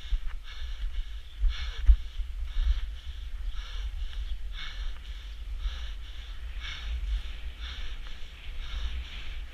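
An inline skater panting hard, about two breaths a second, worn out from racing; wind rumbles steadily on the microphone underneath.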